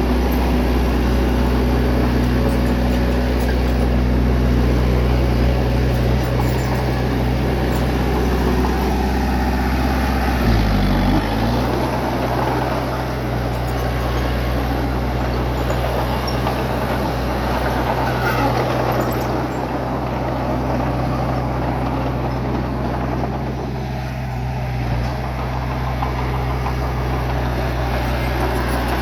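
Bulldozer's diesel engine running steadily while working, with a brief dip in engine speed about ten seconds in before it picks back up.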